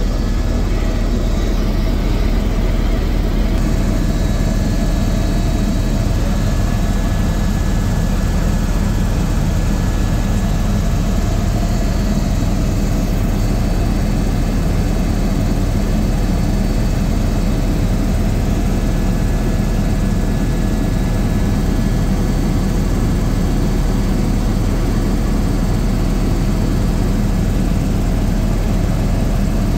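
Helicopter in flight, heard from inside the cabin: a loud, steady drone of rotor and engine, with thin, steady whining tones above it.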